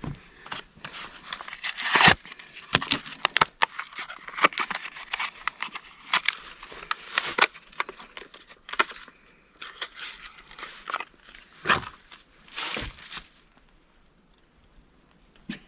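Irregular clicks, knocks and crinkly rustling of hand work on a tractor's hydraulic lines, with louder knocks about two seconds in and again around twelve seconds, dying away near the end.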